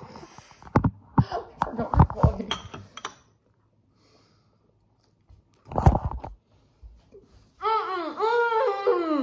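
High-pitched laughter in the last second and a half, rising and falling in quick pulses. Muffled voices and small clicks come in the first few seconds.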